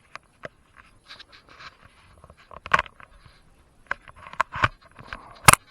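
Sharp clicks, knocks and scraping as parts of a Kobalt table saw are handled and adjusted. The loudest knock comes near the end.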